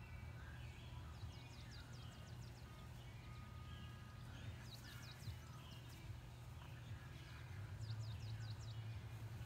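Faint outdoor background: a low wind rumble on the microphone, with a songbird singing short runs of quick falling chirps three times.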